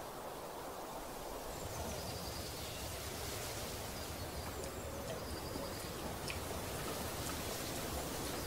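Outdoor ambience: a steady hiss with short, high bird chirps and trills scattered through it.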